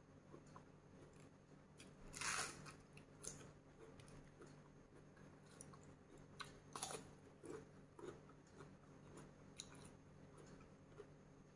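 Faint close-up chewing and biting of food: soft wet mouth clicks throughout, with two louder, brief bites about two seconds in and near seven seconds.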